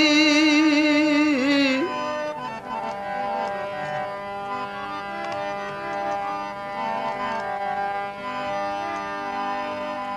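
Gujarati bhajan music: a male singer's held note, wavering in vibrato, ends about two seconds in. An instrumental passage follows, with tabla strokes over sustained harmonium-like reed chords.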